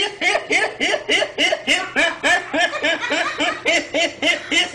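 A young man laughing hard and nonstop: a rapid, unbroken string of high 'ha' pulses, about five a second.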